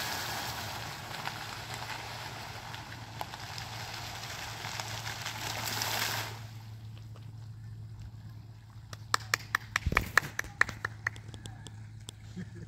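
Fountain water jets splashing into the pool with a steady hiss, cutting off about six seconds in as the jets die down. A steady low hum carries on after that, and a quick run of sharp clicks comes a few seconds later.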